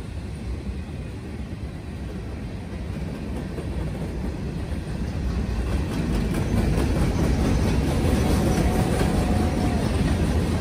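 Freight cars of a passing CSX train rolling by close: a steady rumble of steel wheels on rail with rattling and clacking, growing louder in the second half.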